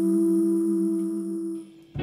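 Two women's voices humming a held two-note harmony without accompaniment, fading out near the end.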